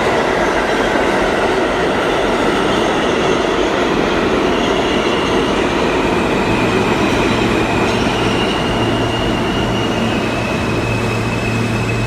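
Alstom R160A/R160B subway train moving through the station close by: loud steady wheel and rail noise with a high electric whine that shifts in pitch. A steady low hum sets in about six and a half seconds in.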